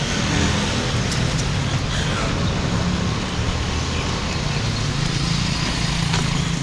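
Steady engine hum with an even hiss over it.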